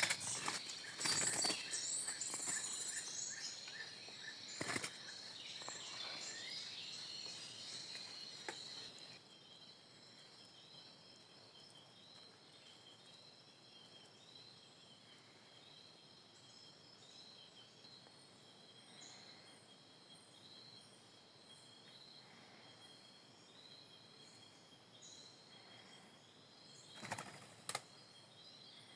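Outdoor ambience of birds calling and chirping over a faint hiss, busier and louder for about the first nine seconds, then a steady repeating chirp. A few sharp knocks stand out, one about five seconds in and two near the end.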